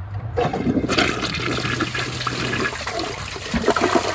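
Toilet flushing, starting suddenly about half a second in, with water rushing through the bowl as it takes down a wristband and a water balloon.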